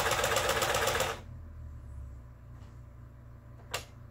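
Mother household sewing machine stitching a zigzag test seam in a rapid, even clatter that stops about a second in. A low hum stays on, and near the end there is a single sharp click as the stitch-pattern dial is turned.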